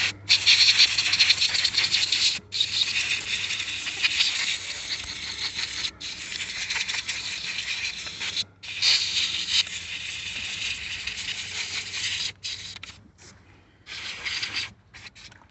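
Compressed air blowing years of dust out of a car's door handle housing: a loud hiss in several long blasts with brief breaks, then a few shorter bursts near the end.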